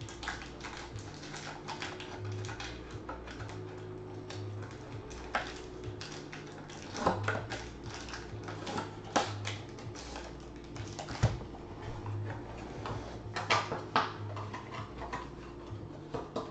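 Foil trading-card pack wrapper crinkling and crackling as it is handled and pulled open, in irregular clicks and crackles with a few sharper ones.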